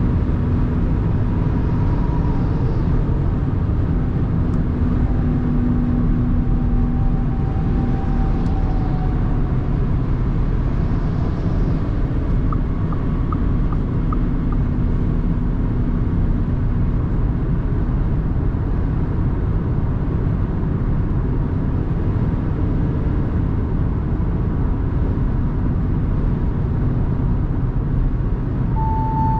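2024 Audi A3 Sportback with its 1.5 TFSI turbo four-cylinder petrol engine, driving at speed on the motorway: a steady, even rumble of tyre, wind and engine noise. A few faint ticks come about halfway through.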